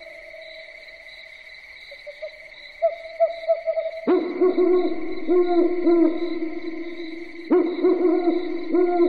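Owl hooting in quick runs of short calls, breaking in abruptly about four seconds in and again near the end, over a steady high-pitched drone.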